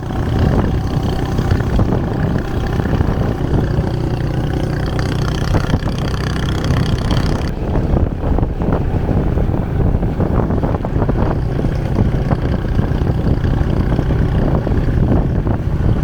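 Motorcycle taxi engine running steadily, with wind buffeting the microphone while riding.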